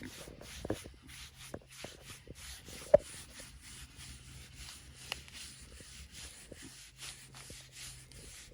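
Hands rubbing a mini pig's bristly hide in repeated strokes, a steady scratchy rasp, with one sharp click about three seconds in.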